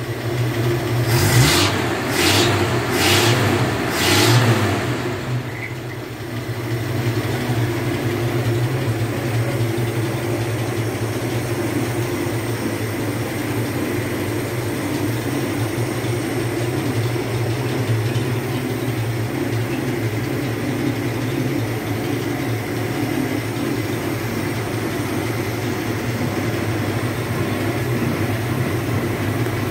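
GMC CCKW truck's straight-six petrol engine running, with four quick throttle blips about a second apart near the start, then settling into a steady idle. It is running on 98-octane unleaded petrol, which the owner says makes it run better.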